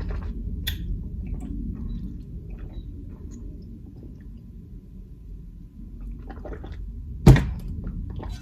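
Close-miked eating sounds: soft mouth and handling noises with scattered small clicks, then one sharp knock about seven seconds in.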